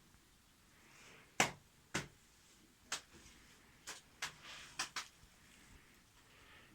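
About seven sharp knocks at uneven intervals over a quiet background, the first and loudest about a second and a half in, the rest spread over the next few seconds.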